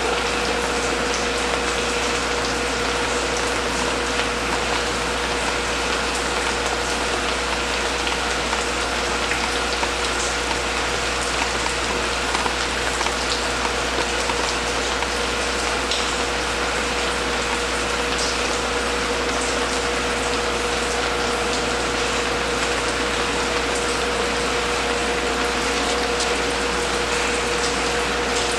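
Steady rushing hiss with a constant mid-pitched hum.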